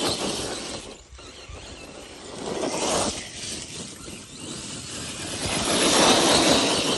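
RC rock crawler's electric motor and geared drivetrain running in surges, whining and working harder, then easing, as it climbs over rough ground.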